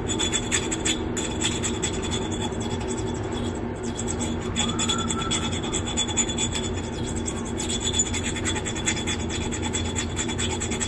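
Wet metal nail file scraping back and forth over the chipped rim of a drinking glass, a rapid, steady run of short strokes grinding the chip smooth.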